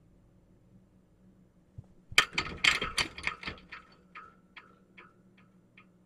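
A rapid clattering of small clicks about two seconds in. It then slows to evenly spaced, fading ticks, about two and a half a second, each with a slight ring.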